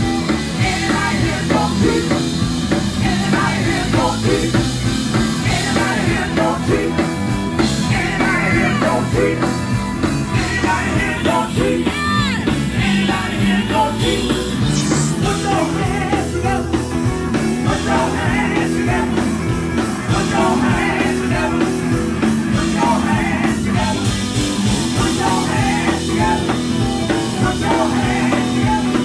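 Live band music played loud through PA speakers: an upbeat gospel number driven by a drum kit, with some singing.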